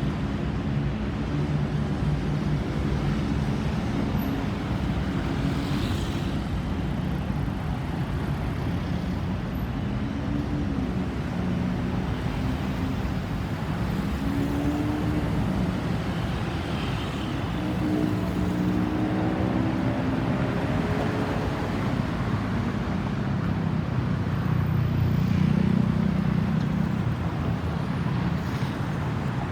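Road traffic: vehicle engines running and tyres on the road in a steady rumble, with one vehicle's engine rising in pitch as it speeds up about two-thirds of the way through. No siren is sounding.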